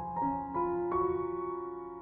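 Background piano music: a few notes played in quick succession near the start, then held and slowly fading.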